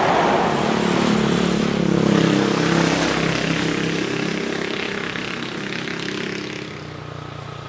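An engine passing by: a steady hum that swells over the first two seconds or so and then slowly fades away.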